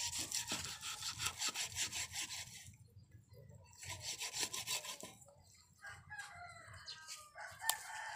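A knife sawing back and forth through a fish on a wooden chopping block, in two spells of quick scraping strokes. Near the end a rooster crows.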